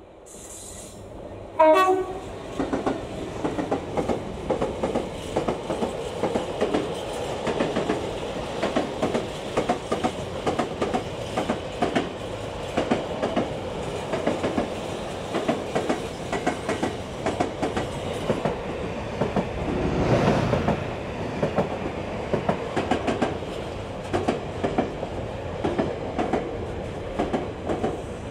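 A Class 66 diesel freight locomotive, with its two-stroke V12 engine, passes close by, and the sound jumps suddenly loud just under two seconds in. Its container wagons follow, rattling past with a fast, rhythmic clickety-clack of wheels over the rail joints, and there is a broader swell of noise about twenty seconds in.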